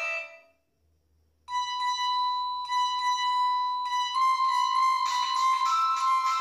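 Ti.Phone T90 feature phone playing built-in ringtone previews through its small loudspeaker: one ringtone stops and fades out, and after about a second of silence the next one starts, a synthesised tune over a held note that changes pitch a few times and grows fuller near the end.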